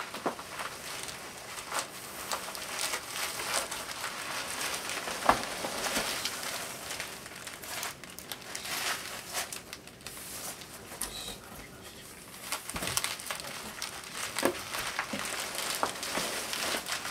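Loose foam packing peanuts and bubble wrap being rummaged through by hand as a large bubble-wrapped boombox is lifted out of its shipping box: a continuous rustling and crinkling, dotted with many small clicks.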